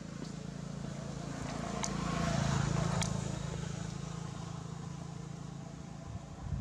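A motor vehicle passing, its low engine hum swelling to a peak about two and a half seconds in and then fading, with two sharp clicks along the way.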